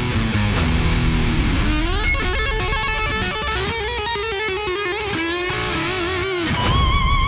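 Heavy rock electric guitar: low chugging chords, then a rising slide into a lead line of wavering, bent notes with vibrato, with a brighter held note near the end.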